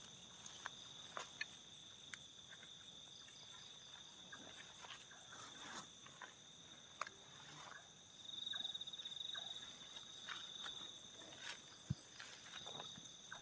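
Faint night chorus of crickets and other insects, several steady high-pitched trills at once, one of them swelling louder about eight seconds in. Over it, soft rustles and footsteps through grass and undergrowth, with a sharper snap or knock near the end.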